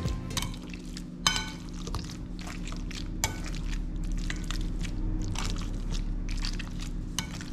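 Metal potato masher mashing soft chayote flesh in a glass bowl: irregular wet squishing strokes with occasional clinks of the masher against the glass, over a steady low hum.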